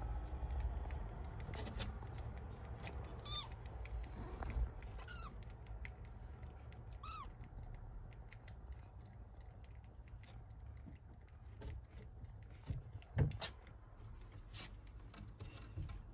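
A kitten mewing, about four short high-pitched mews in the first half, then a sharp knock about thirteen seconds in.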